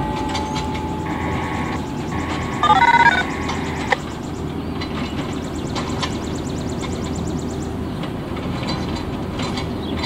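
Short sequences of electronic beep tones, stepping in pitch about three seconds in, over steady outdoor background noise; the Whelen siren itself stays silent. The tones are typical of the activation tones sent by dispatch, which the siren fails to answer, a failure its watchers put down to a radio problem or dead batteries.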